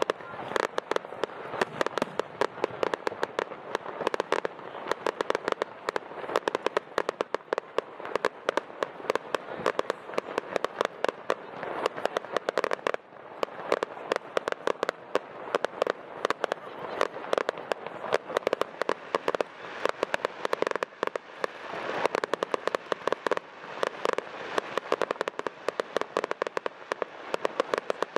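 Aerial fireworks display: a dense, continuous crackle of sharp pops, many per second, easing briefly twice before building again.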